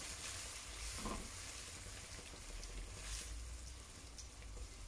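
Leeks and freshly added stock sizzling faintly in a wok, stirred with a wooden spoon, with a few light ticks and scrapes.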